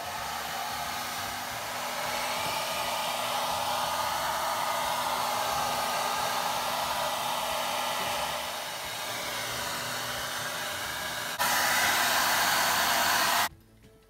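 Conair 1875 handheld hair dryer blowing air into refrigerator condenser coils to clear the dust, a steady rush of air with a faint motor hum. It turns suddenly louder about eleven seconds in, then shuts off just before the end.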